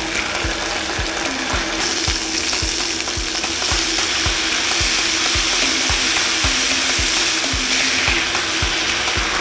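Marinated chicken thighs sizzling as they fry in a hot non-stick pan on medium-high heat, the hiss growing stronger about two seconds in.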